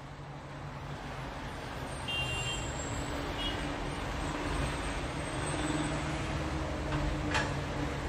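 Road traffic noise: a steady rumble of vehicles that fades in over the first two seconds, with one short sharp click near the end.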